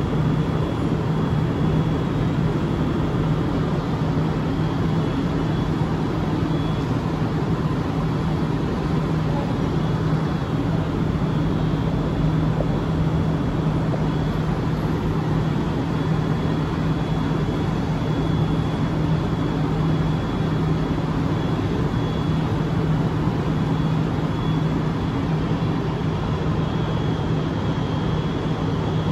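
Bombardier Innovia ART 200 light-metro train standing at the platform, giving a steady, even hum with a faint high whine above it.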